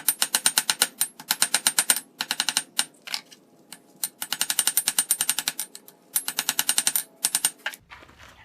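Hammer striking hot rebar on an anvil as the bar is drawn out thin: rapid blows, about seven a second, in several runs broken by short pauses, with a faint high ring.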